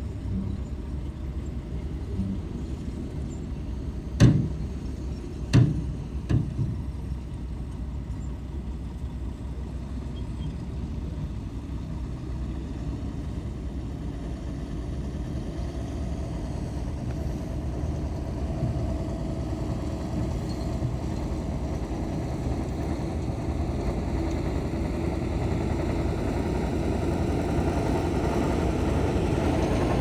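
Heavy earthmoving machinery's diesel engine running steadily, with three sharp knocks between about four and seven seconds in. The engine grows louder over the second half.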